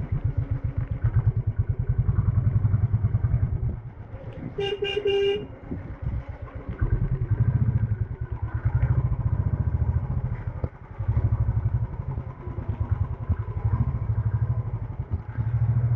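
Royal Enfield Standard 350's single-cylinder engine running under way, its fast low thumping swelling and easing off several times as the bike is ridden. A vehicle horn sounds briefly about five seconds in.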